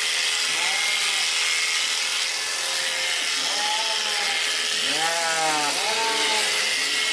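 Electric sheep shears running steadily as they clip through a Babydoll sheep's fleece, with a sheep bleating several times, short wavering bleats, the loudest about five seconds in.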